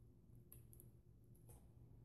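Near silence with a few faint clicks as fingers pick tape off the metal mounting bracket of a laptop hard-drive caddy.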